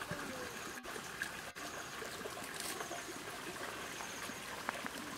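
Tall grass and brush rustling as people push through it and reach into it, a steady hissing rustle with a few small snaps and faint high chirps.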